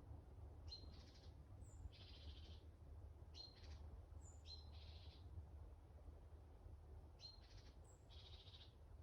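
Faint woodland bird song: a songbird repeating a short, sharp high note followed by a buzzy trill, about every second or two, over a low, steady rumble of background noise.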